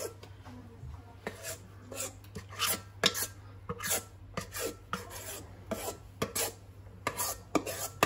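A utensil scraping thick batter out of a stainless steel mixing bowl, in many short, irregular strokes against the metal.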